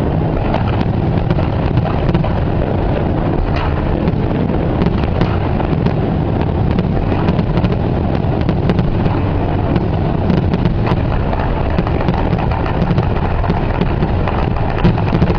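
Aerial fireworks display: a steady, dense rumble of shell bursts with many sharp cracks and crackles running through it.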